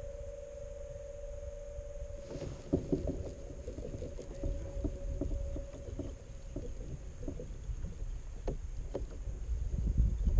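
Small irregular taps and splashes of water against a kayak hull, with a low wind rumble on the microphone. A faint steady hum runs under it for the first six seconds or so.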